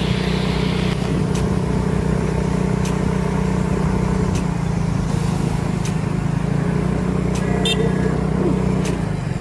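A motor vehicle's engine running at a steady pitch while on the move, under a steady rush of road and wind noise, with a few faint clicks.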